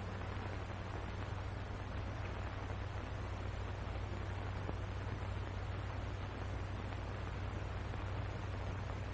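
Steady hiss and low hum of an old film soundtrack, with no other distinct sound.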